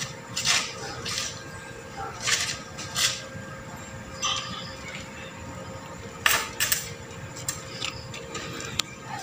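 Irregular metallic clinks and clanks as steel rods and a stick-welding electrode holder are handled on a concrete floor, followed near the end by a few short sharp ticks as the welding arc is struck.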